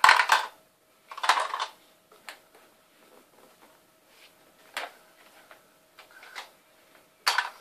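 Small plastic toys clattering and rattling in a few short bursts as a toddler handles them, with single knocks in between.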